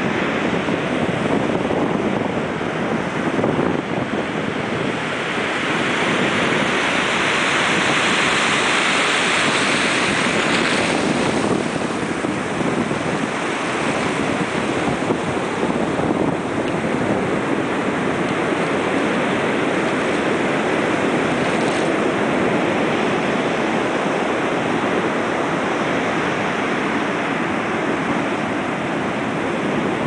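Sea surf breaking and washing up a sand beach, mixed with shallow river water running out over the sand into the sea: a continuous rushing wash. About a fifth of the way in it swells into a louder, hissier surge for a few seconds.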